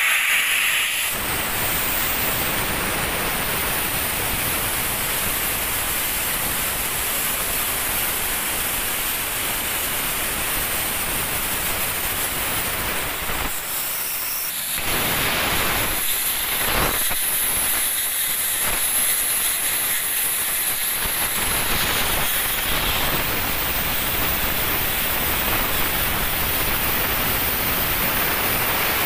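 Plasma cutting torch on a profile cutting machine cutting through steel plate: a steady, loud hiss from the plasma arc and its gas jet. The hiss eases briefly a little before halfway, then carries on as before.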